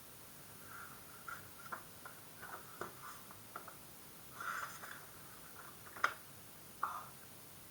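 Pokémon trading cards being handled and flipped through: faint, irregular slides and taps of card stock, with a short rustle about four and a half seconds in and a sharper snap about six seconds in.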